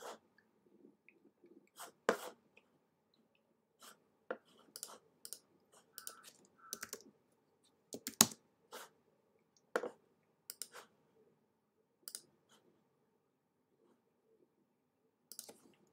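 Scattered clicks of a computer mouse, with a short run of keystrokes on a keyboard a few seconds in, irregular and fairly quiet.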